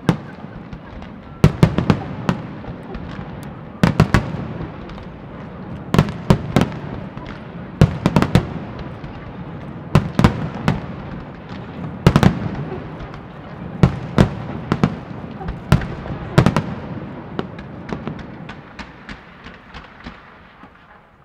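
Fireworks display: shells bursting in the sky with sharp bangs about every two seconds, and smaller crackling cracks between them. The bangs thin out and the noise fades near the end.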